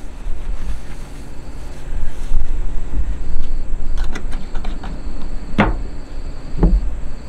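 Wind buffeting the microphone as a low rumble, with a few light clicks and then two sharper knocks in the second half as a metal acetone can is picked up and handled.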